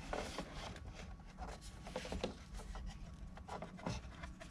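Plastic engine cover being shifted over the engine, with a series of light scrapes and knocks as its rubber grommets are lined up with the intake manifold studs.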